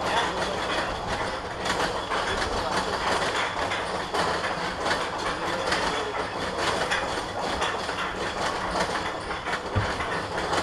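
Steel roller coaster train being hauled up the chain lift hill. The lift chain and anti-rollback ratchet clack steadily throughout.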